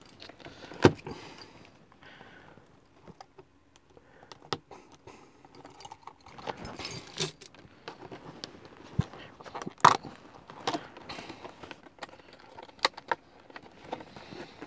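A cardboard product box being cut open and unpacked by hand: soft, irregular rustling of card and paper, broken by a few sharp clicks and taps, the loudest about a second in and near ten seconds in.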